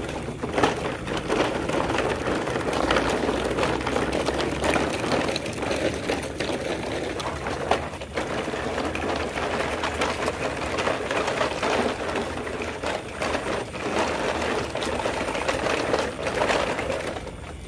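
Plastic toy dump trucks rolling over loose river pebbles: a continuous crunching rattle of stones under the wheels, made of many small clicks.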